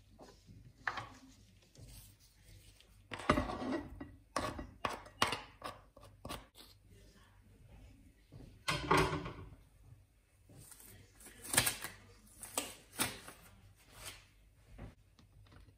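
Kitchen knife mincing garlic on a plastic cutting board: irregular taps in quick clusters, with a couple of longer scrapes.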